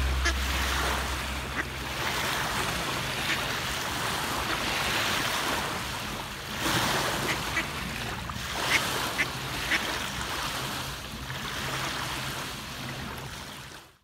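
Small waves washing and breaking on a sandy shore, with mallard ducks giving a handful of short calls. The sound fades out near the end.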